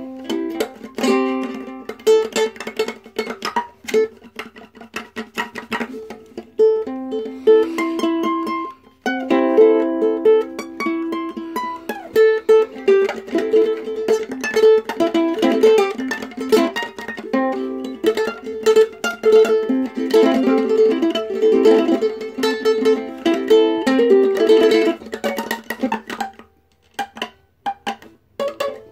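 Ukulele played in a fast run of short plucked and strummed notes, pausing briefly near the end.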